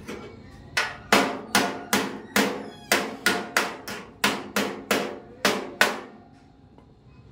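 A hammer striking metal about fourteen times in quick succession, roughly three blows a second, each blow with a short metallic ring, then stopping.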